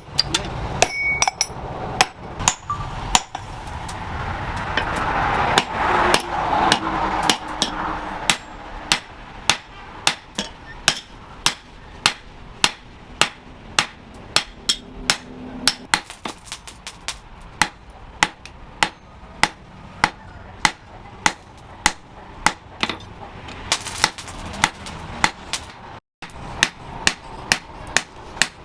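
A blacksmith's hand hammer striking hot steel on an anvil: sharp ringing blows, irregular at first and then a steady rhythm of about two blows a second, with a brief rushing noise early on.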